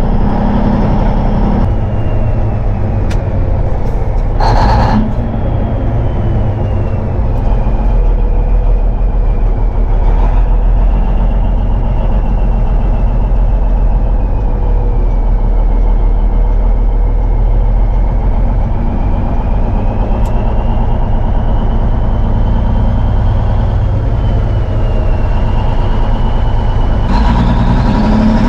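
A 1971 Peterbilt 359's diesel engine running under way, heard from inside the cab as a steady low drone with a whine drifting up and down in pitch above it. A short hiss comes about five seconds in, and near the end the whine rises in pitch.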